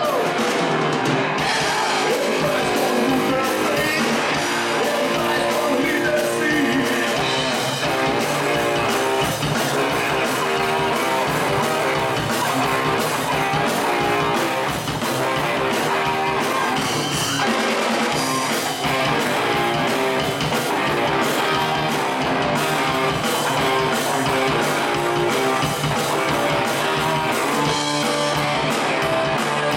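A live rock band playing loud: electric guitars, bass and drums, with singing over them.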